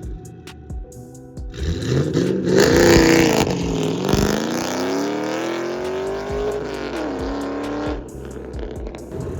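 A car engine revving hard for several seconds, its pitch climbing steadily and then dropping, with music underneath. The revving stops suddenly about a second before the end.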